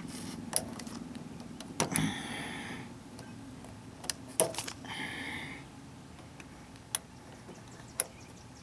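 Scattered sharp clicks and two short scraping rustles as a fuel-line retainer clip is handled and pushed into the fuel filter line fitting until it snaps in.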